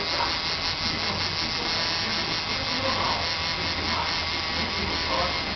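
Electric tattoo machine buzzing steadily.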